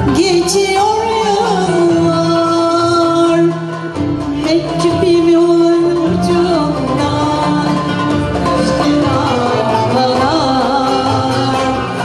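Female soloist singing a Turkish classical song in makam Hüseyni, with long held notes that waver in vibrato, accompanied by violin, cello and kanun.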